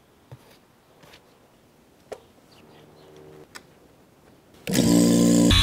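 A few light clicks and taps as a brass hose fitting is coupled to a vacuum pump's valve. Near the end, the vacuum pump starts up and runs with a loud, steady hum and hiss as it begins evacuating the chamber.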